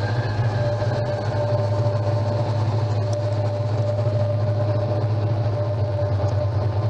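Noise and drone sound art: a dense low drone that throbs rapidly, with a steady high tone held above it and a higher tone fading out about a second in.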